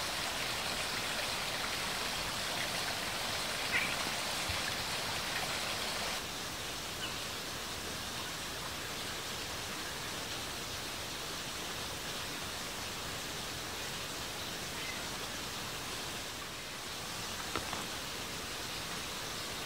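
Steady hiss of water outdoors, even and unbroken, with a slight drop in level about six seconds in and a few faint ticks.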